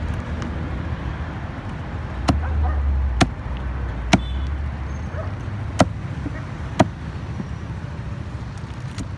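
Heavy cleaver chopping through a fish on a wooden chopping block: five sharp chops at uneven intervals, over a steady low rumble.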